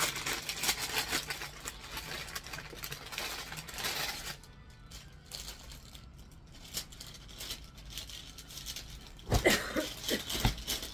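Rustling and crinkling of garments being handled, busiest in the first four seconds, then quieter.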